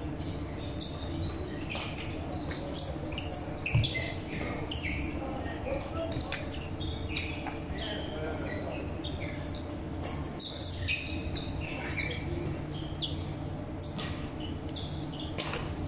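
Badminton play on a wooden sports-hall floor: sneakers squeaking in short chirps as players move, and sharp clicks of the shuttlecock being struck by rackets, a louder knock about 4 seconds in and another about 6 seconds in. Heard over the steady hum of a large hall.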